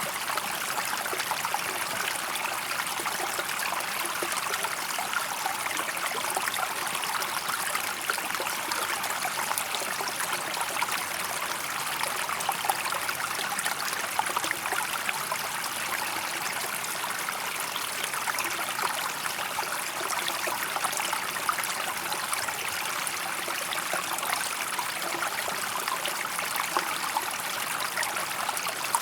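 Shallow stream water flowing steadily over stones, a continuous bubbling and trickling with small splashes.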